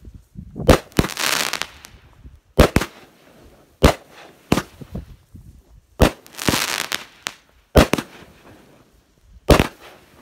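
200-gram consumer firework cake firing into the air: a sharp, loud bang every second or two as each shot breaks, several of them followed by about a second of crackling.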